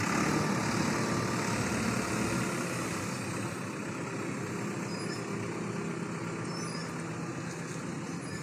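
JCB 3DX backhoe loader's diesel engine running steadily at close range, a little louder in the first three seconds.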